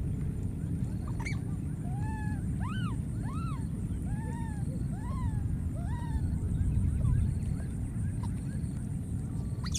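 Baby macaque crying: a run of short cries, each rising and then falling in pitch, repeated about twice a second for several seconds, over a steady low rumble.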